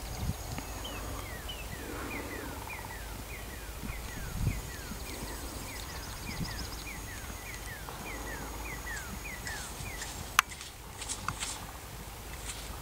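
Dull hoofbeats of a Dutch Harness Horse mare moving loose on arena sand, with a bird singing a fast series of falling chirps, about three a second, through most of the first nine seconds. About ten seconds in comes one sharp crack, followed by a few lighter clicks.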